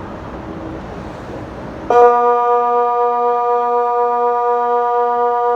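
Kockum Sonics DELTA 6 electronic siren switching on abruptly about two seconds in and holding a steady, low, organ-like continuous tone: one of the long tones of the Swiss water alarm (Wasseralarm) signal. Before it comes on there is only a low background hiss.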